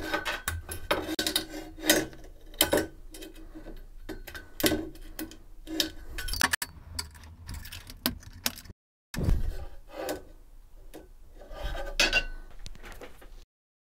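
Metal mounting clips being snapped by hand onto aluminium LED-strip profile rails: irregular sharp clicks and light knocks, with scraping and rubbing of metal on metal between them.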